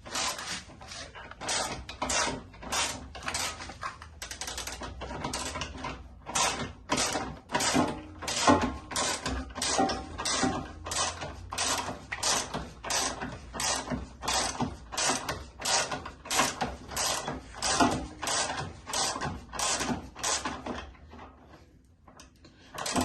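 A hand ratchet wrench worked back and forth on a bolt of a VW T5 engine, in steady repeated strokes of about two a second, with a short pause near the end.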